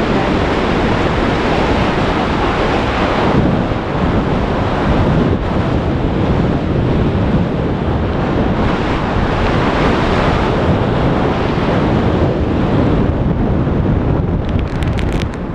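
Loud rushing wind buffeting the camera microphone as a tandem pair descends under an open parachute canopy, swelling and easing in gusts. A few faint clicks near the end.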